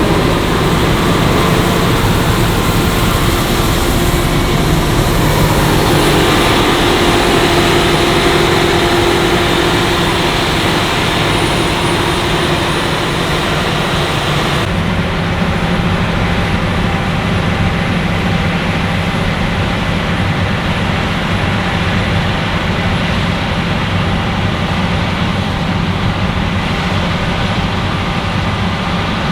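Claas Lexion 770TT combine harvester running steadily at work: a constant heavy engine drone with the mechanical noise of the harvesting machinery. About halfway through, the sound changes abruptly and loses much of its high hiss.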